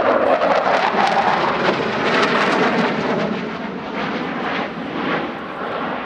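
Jet noise from a MiG-29 Fulcrum's two Klimov RD-33 turbofans as the fighter flies a display turn: a loud, rough rushing sound with a constant crackle, easing off slightly in the second half.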